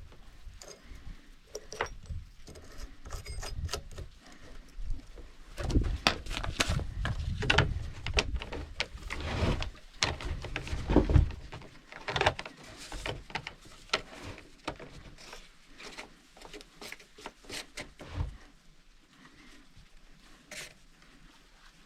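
Irregular clicks, knocks and scraping of a chainsaw being handled and cleaned by hand, busiest in the middle and thinning out after about 18 seconds; the engine is not running.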